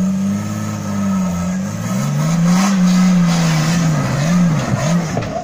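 Toyota Land Cruiser engine revving hard under load, its pitch rising and falling several times, as the 4x4 strains against a rock step without getting up it; tyres scrabbling on the rock can be heard alongside. The revs drop off at the end.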